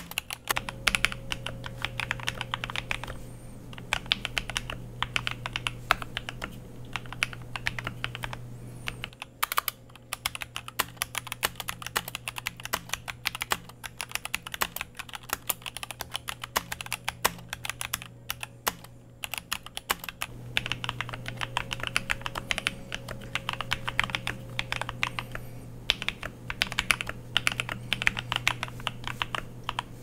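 Typing on a Keychron K4 V2 mechanical keyboard with Gateron Red linear switches: fast, continuous key clacks with a few brief pauses.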